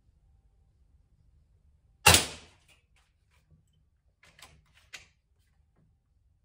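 PCP air rifle firing a single shot, a sharp report about two seconds in that dies away quickly in the small room, followed a couple of seconds later by a few metallic clicks of the side lever being worked to cock it for the next shot.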